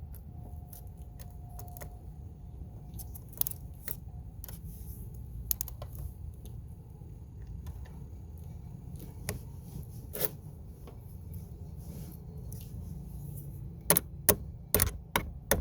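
Scattered light metallic clicks and taps of hand tools working a car battery terminal clamp, ending in a quick run of sharper knocks. A steady low hum runs underneath.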